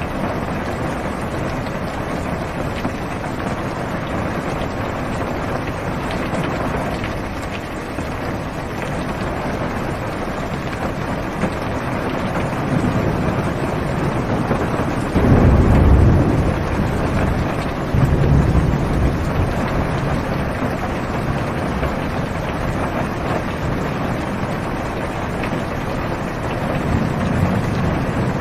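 Heavy rain falling steadily on a car's roof and windows, heard from inside the car. A little past halfway a low thunder rumble rolls in for a couple of seconds, followed by a second, smaller rumble.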